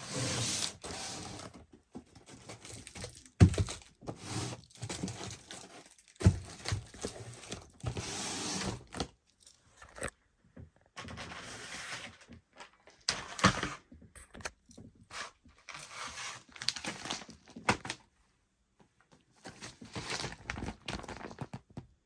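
Consumer fireworks going off: stretches of hissing and crackling broken by short pauses, with a few sharp bangs, the loudest about three and a half seconds in.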